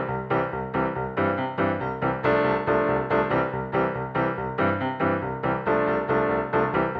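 Background music: a keyboard melody with notes struck in a quick, even rhythm.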